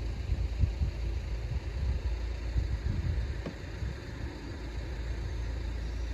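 Low, uneven rumble that rises and falls in loudness.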